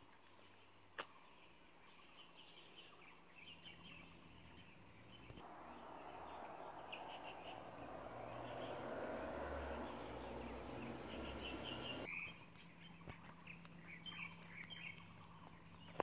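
Birds chirping, short high calls scattered throughout. A steady rushing noise swells in about five seconds in and cuts off abruptly around twelve seconds.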